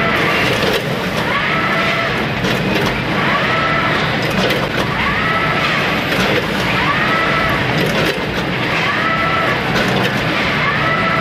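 Linear combination weigher running with rice: a steady machine noise with grains rattling and pouring off the belt feeders, scattered clicks, and a short rising whine that repeats about every second and a half to two seconds.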